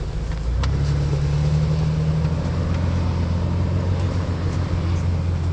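Off-road 4x4's engine running steadily at low revs, a constant low engine note with a few faint clicks.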